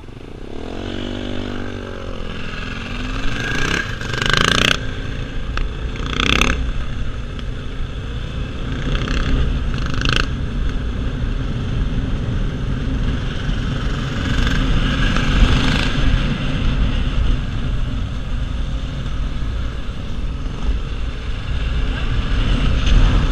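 Motorcycle riding on the road: the engine revs up and down while pulling away in the first few seconds, then settles into a steady drone under heavy wind and road noise on the microphone. A few short loud wind blasts come between about four and ten seconds in.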